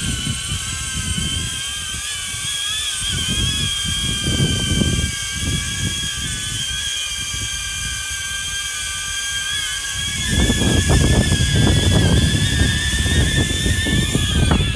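DJI Avata drone's propellers whining steadily as it holds against strong gusty wind, the pitch wavering slightly. Wind rumbles on the microphone in gusts and grows stronger about two-thirds of the way through.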